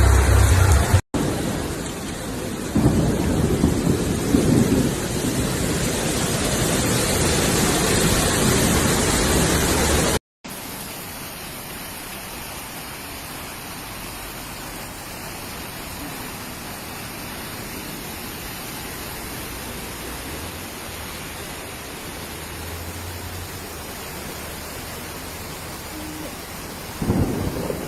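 Heavy rain pouring down in a steady hiss. A low rumble swells from about three to five seconds in. The rain drops back to a quieter steady hiss after about ten seconds, and a louder low rumble comes in near the end.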